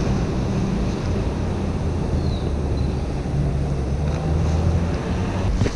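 Wind buffeting the microphone: a steady, uneven low rumble under an outdoor hiss, with a light click near the end.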